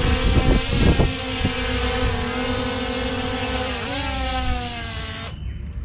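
DJI Mini 3 Pro quadcopter flying nearby: a steady propeller whine with a buzzing pitch that rises briefly about four seconds in, over wind rumble and buffeting on the microphone. The sound cuts off abruptly near the end.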